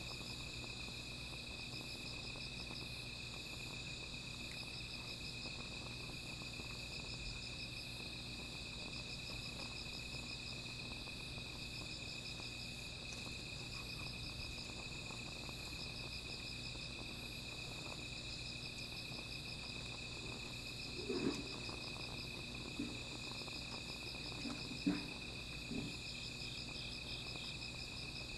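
A chorus of night insects, crickets among them: one steady high trill with several other insects chirping in repeated pulsed phrases above it. Near the end, a handful of short low pops and knocks rise briefly over the chorus.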